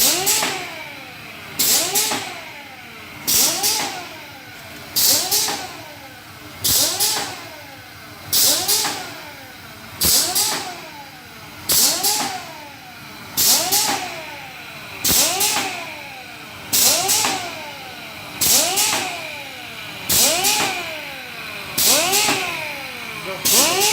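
Disinfectant gel and cologne filling machine running through its fill cycle about once every 1.7 seconds. Each cycle is a sharp hiss followed by a tone that rises and falls in pitch.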